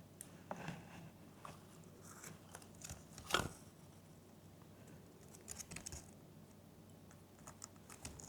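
Scattered small crunches and clicks of grey-breasted parakeets (Pyrrhura conures) biting into treats, with one sharper click about three and a half seconds in.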